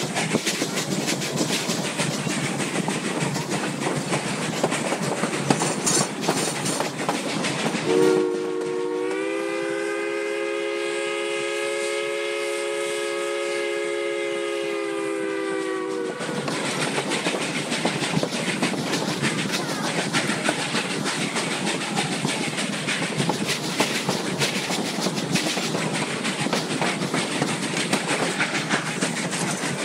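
Narrow-gauge steam train of the Durango & Silverton line under way, its coaches clattering and rattling steadily over the rails. About eight seconds in, the locomotive's chime whistle sounds one long blast of several notes together for about eight seconds, sagging slightly in pitch as it cuts off.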